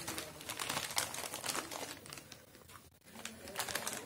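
Rapid crinkly crackling and crunching of puff corn snacks being handled and chewed, with rustling of the snack packet.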